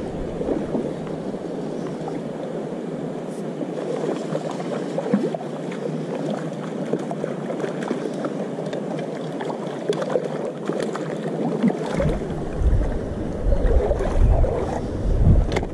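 Shallow stream running over a stony bed, a steady rush of water. From about twelve seconds in a low rumble on the microphone joins it.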